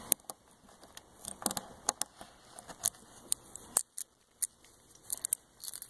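Metal fender washers and machine screws clicking and clinking as they are handled and slid onto the screw: scattered light, sharp clicks.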